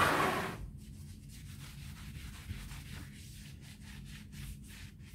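Scrubbing strokes on a wet, soapy slate clock case, a quick run of short rubs, with a louder rub right at the start.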